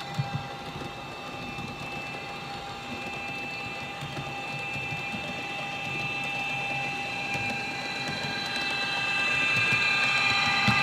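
Atlas HO scale NJ Transit ALP-45DP model locomotive and multi-level cars running on the track: a steady high whine over a low mechanical rumble, growing louder as the train comes close.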